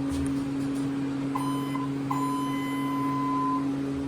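ThyssenKrupp elevator's electronic signal buzzer, the 'Dover buzz', sounding twice: a short buzz about a second and a half in, then a longer one of about a second and a half. A steady low hum runs underneath.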